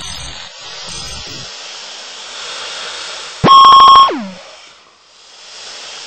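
A steady hiss, broken about three and a half seconds in by one very loud electronic beep lasting about half a second, whose pitch then slides steeply down as it dies away.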